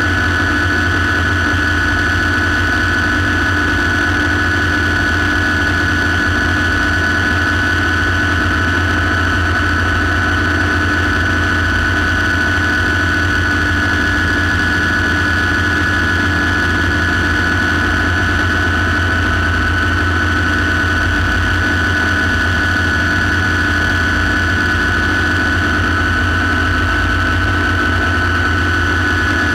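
Light turbine helicopter running steadily, heard from inside the cockpit: a high, steady turbine whine over a low drone, holding constant throughout.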